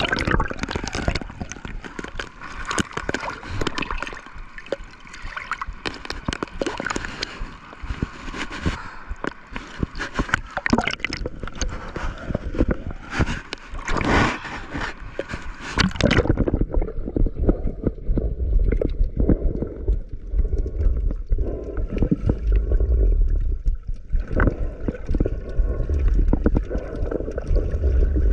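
Seawater gurgling and sloshing, with many sharp splash clicks. About sixteen seconds in the sound suddenly turns muffled and low, a deep rumble of water as heard underwater.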